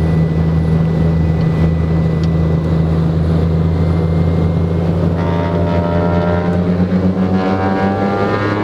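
Twin piston engines of a Cessna 414 Chancellor running with a steady drone. About halfway through, the pitch begins to climb as power comes up for the takeoff.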